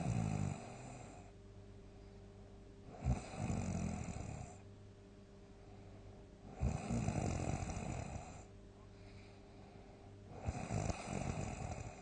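A sleeping person snoring loudly: four rattling snores about three and a half seconds apart, each starting abruptly and lasting a second and a half to two seconds, with quieter breathing between.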